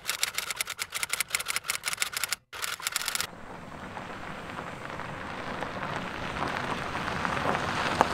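Rapid typewriter key clicks for about three seconds, then a steady hiss of car tyres rolling over a gravel road that slowly grows louder as the car approaches.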